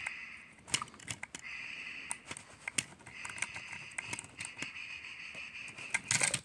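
Plastic toy trains being pushed and handled by hand, making sharp clicks and rattles. A steady high whine sounds briefly about a second and a half in, then again for about three seconds from three seconds in.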